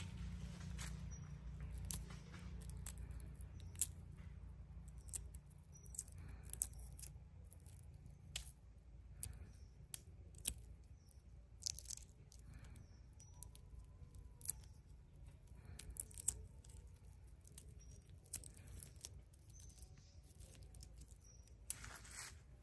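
Shell of a cooked egg being peeled by hand: faint, irregular small crackles and snaps as pieces of shell break away, over a low rumble that fades out after the first several seconds.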